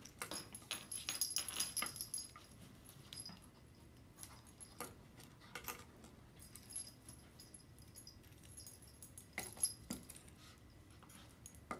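Plastic push pencils clicking and clinking together as they are handled and fitted together on a table: a busy run of light clicks in the first two seconds, then a few scattered clicks.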